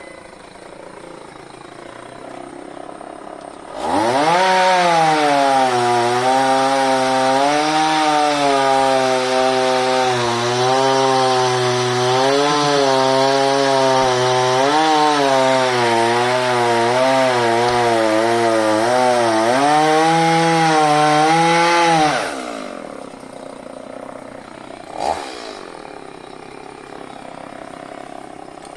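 Chainsaw revs up about four seconds in and runs at high speed for about eighteen seconds, its pitch wavering up and down as it cuts into wood, then falls away near the end. A single short knock follows a few seconds later.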